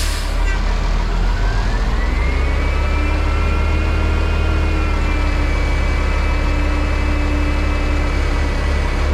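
International 4900 truck's diesel engine running with a deep rumble; its pitch climbs for about two seconds, starting a second in, then holds steady.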